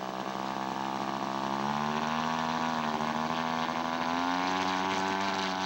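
Radio-controlled scale seaplane's engine running steadily on the water, its pitch edging up slightly in the first couple of seconds.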